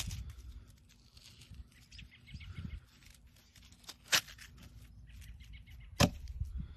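A knife blade scraping and crunching through a packed snowball, shaving off snow, with two sharp clicks about four and six seconds in.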